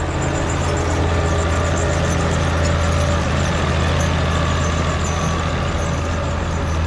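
Farmall 560 tractor's six-cylinder engine running steadily as the tractor drives past, with its newly fitted electronic-ignition distributor, coil and plug wires. It runs a lot better than before, though the timing may still need fine tuning.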